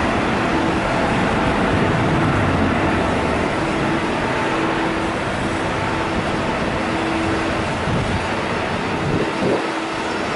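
Boeing 777 jet engines at high thrust during a departure: a loud, steady roar with a few faint steady tones running through it.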